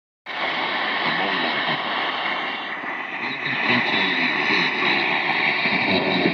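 Zenith Trans-Oceanic 3000-1 shortwave radio putting out a strange, steady hissing drone of a signal through its speaker, cutting in suddenly just after the start.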